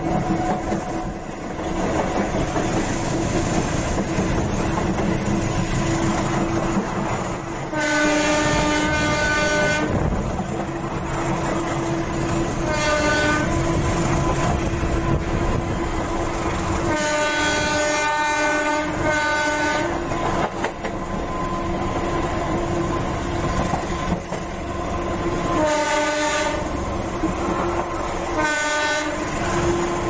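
Diesel locomotive horn sounding six blasts over the steady running noise and wheel clickety-clack of the passenger coach, heard from an open coach window. The blasts come as a long one about eight seconds in, a short one, a close pair, then two more near the end. They are warnings for the many unofficial level crossings along the line.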